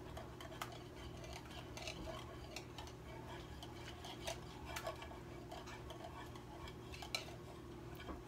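A whisk clinking and scraping against a mixing bowl as buttermilk and egg are beaten together, in irregular light clicks.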